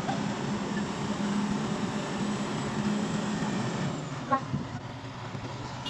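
Caterpillar 325B tracked excavator's diesel engine running, with a steady droning tone that drops away about four seconds in. A single sharp knock follows shortly after.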